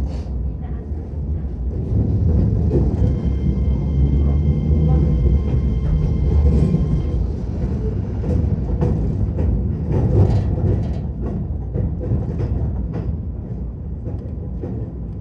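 Keihan 10000 series electric train running on rails: low rumble of the wheels with repeated clacks over rail joints and points, and a faint steady high whine for a few seconds. It is approaching its terminal stop, and the rumble eases off near the end.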